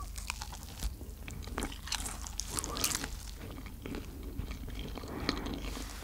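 Close-up biting and chewing of a pan-fried egg and mozzarella flatbread: a run of crisp crunches and chewing clicks.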